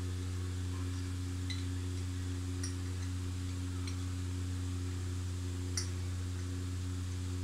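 Steady low hum with a few faint, light clicks of a metal spoon against a ceramic bowl as ghee is scraped into a wok, the sharpest click a little after halfway.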